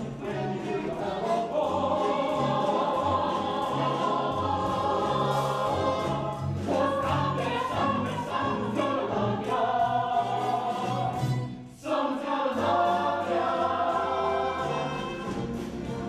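A chorus and soloists singing a musical-theatre number over instrumental accompaniment. The music breaks off for a split second about twelve seconds in, then carries on.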